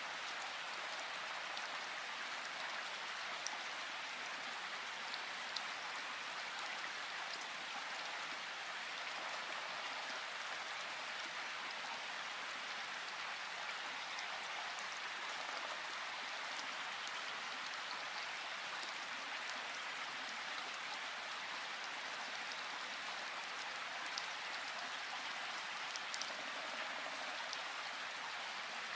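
Rushing river water, a steady even hiss with a few faint high ticks now and then.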